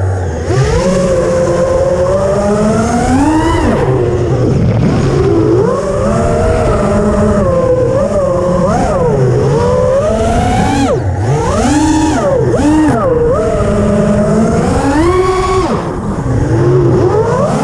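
Racing quadcopter's brushless motors and propellers whining, the pitch sliding up and down quickly with the throttle as it swoops and banks, heard from the onboard camera.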